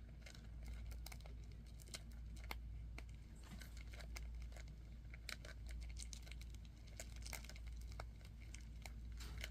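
Rhinoceros beetles (Trypoxylus dichotomus) mating in their container, making an irregular run of scratching and clicking.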